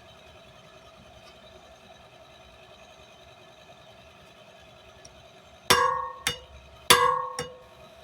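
Hand hammer striking on an anvil while forging steel stock, four ringing blows in the last two and a half seconds, loud and lighter in turn. A steady hum runs underneath.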